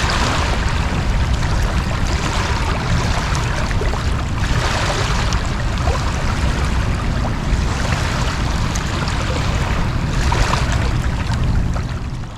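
Fast-flowing estuary water rushing steadily on an ebbing tide, with a heavy low rumble, stopping abruptly near the end.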